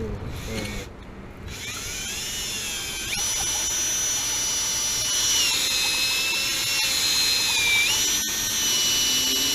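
Drill spinning a Blue Monster copper-pipe cleaning tool at low speed forward to clean copper pipe: a whine that starts about a second and a half in and shifts pitch several times as it runs.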